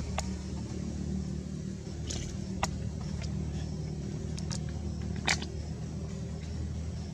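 Steady low hum of a running motor, with a few short sharp clicks, the loudest about five seconds in.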